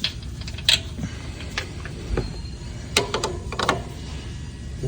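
Scattered metallic clicks and clinks of hand tools and bolts while a mower starter's mounting bolts are being started, with a cluster of clicks about three seconds in.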